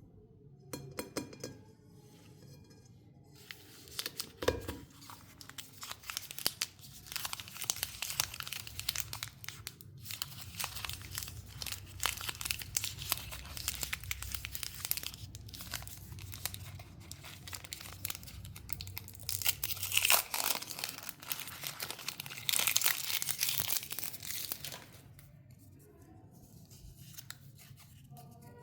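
Chocolate wrappers being unwrapped close up: crinkling and tearing of the wrapping in dense, crackly bursts with brief pauses, dying away near the end.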